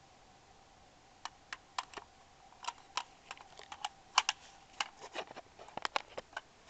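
A quick, irregular string of about twenty sharp clicks and taps, starting about a second in: fingers handling the camera body.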